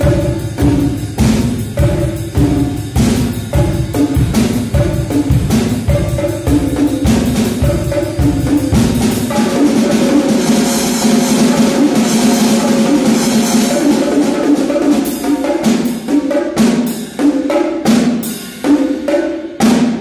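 Solo multi-percussion playing with sticks on bongos, drum kit and cymbals: quick strokes over a bass drum for the first several seconds, then a sustained roll on a higher drum without the bass, then separate sharp strikes near the end.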